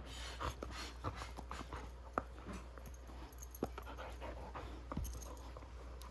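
Goldendoodle panting while chewing and mouthing a stuffed plush dinosaur toy, with scattered soft clicks and rustles at irregular intervals.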